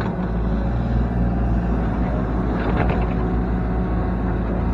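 IHI mini excavator's diesel engine running steadily under work, with a short clatter of scraping or knocking a little before three seconds in as the machine digs.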